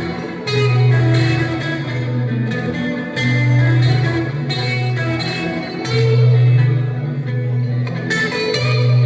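Blues guitar improvisation in B minor over a looper-pedal backing, with lead notes played over a looped part whose strong low note comes back about every three seconds.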